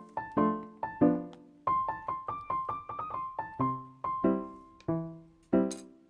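Background music: a piano melody of struck notes and chords, each ringing and fading before the next.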